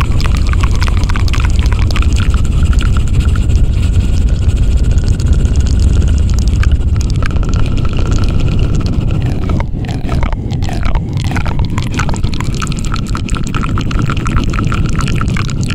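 ASMR 'helicopter' trigger made right at the microphone: loud, rapid, dense close-up noise with a heavy low rumble, thinning out slightly about ten seconds in.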